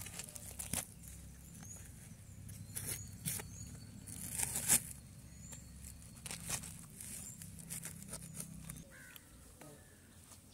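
Soft scattered clicks, rustles and tearing as ripe jackfruit is pulled apart by hand and its bulbs are cut from the fibres with a knife. Under them runs a low steady hum that stops about nine seconds in.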